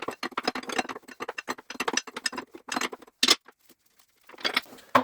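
Rapid run of metallic clicking from hand tools working on the engine, stopping about three seconds in, with another short run of clicks near the end.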